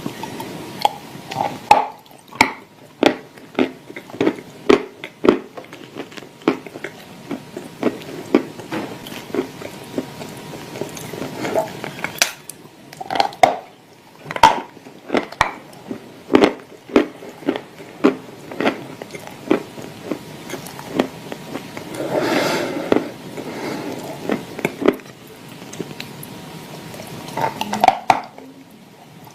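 Dry clay chunks with clay paste being crunched and chewed close to the microphone: many sharp crunches at irregular intervals, with a longer, noisier stretch a little past the middle.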